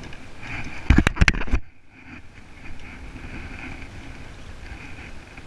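A quick cluster of loud knocks about a second in, over a steady outdoor hiss.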